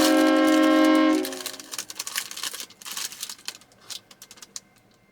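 Train horn sounding one long steady multi-tone blast that cuts off about a second in, followed by a scatter of fading clicks.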